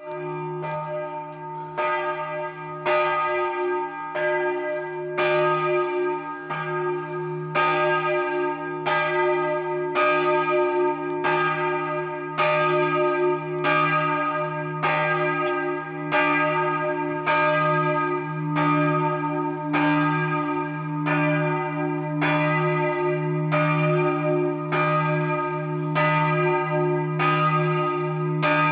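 The middle bell of a three-bell set cast by Capanni in 2009 swinging full circle for the noon ringing, its clapper striking about once a second, with the bell's low hum ringing on between strokes.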